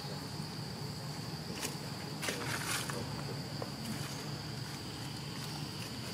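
Insects droning steadily in one high, unchanging tone, with a short burst of noise a little over two seconds in.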